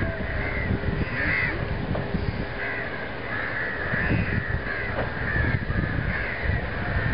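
Birds calling in many short, repeated cries, several overlapping, over a low rumble.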